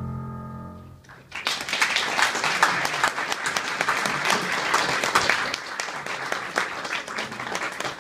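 The last piano chord of the piece fading out on a digital piano, then an audience applauding from about a second and a half in, the clapping thinning to scattered claps near the end.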